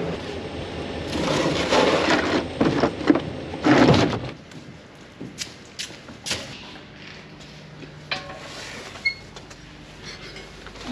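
Rustling and scuffing handling noise for about four seconds, then scattered light knocks and clicks.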